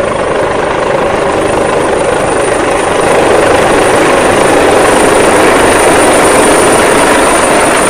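Helicopter sound effect: loud, steady rotor and engine noise with a thin high whine above it, growing a little louder about three seconds in.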